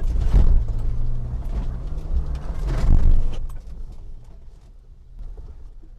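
A 1995 Mitsubishi Montero V43's 3.0-litre 24-valve V6 running as the SUV drives over rough unpaved ground, being checked for chassis rattles and clunks. Two louder rumbles come about half a second in and just before three seconds, and it turns quieter from about halfway.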